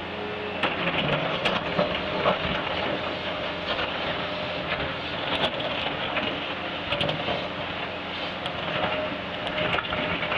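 Cat 330 hydraulic excavator working under load, its diesel engine and hydraulics running steadily while the chuck blade scrapes out a ditch. Dirt and rocks knock and clatter against the steel blade again and again.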